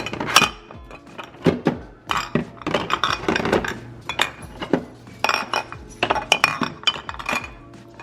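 Glass jars and bottles clinking and knocking together as items are moved around and set down on shelves, with background music.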